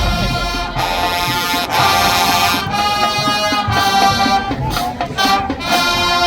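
Marching band's brass section playing a fanfare: a run of loud held chords, each about a second long, with short breaks between them.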